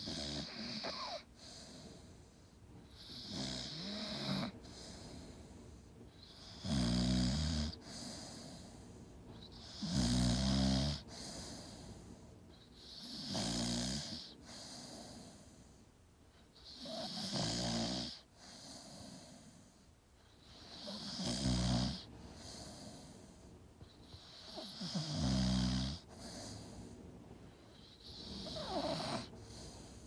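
Staffordshire bull terrier snoring in deep sleep, a low rumbling snore with a breathy hiss on each breath, repeating steadily about every three and a half seconds.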